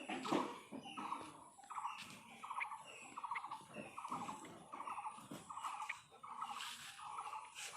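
An animal's short pulsed calls repeating steadily, about one every 0.7 s, with brief higher chirps and a few scattered knocks.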